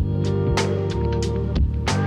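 Background music with a steady beat: sustained bass and chord notes under regular drum hits.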